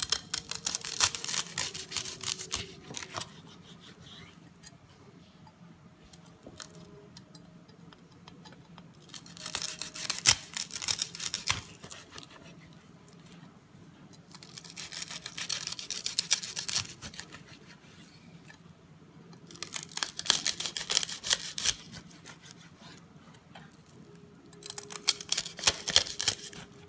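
Large kitchen knife cutting through the crisp crackling of roast pork belly: five rounds of crunching and crackling as the blade saws through the skin, each a couple of seconds long with short pauses between slices.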